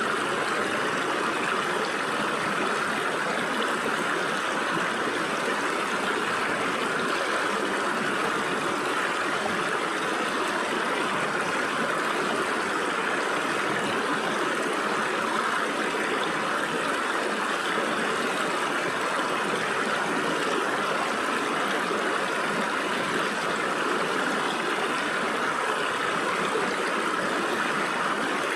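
Stream water flowing and splashing through gaps between rocks, a steady even rush with no changes.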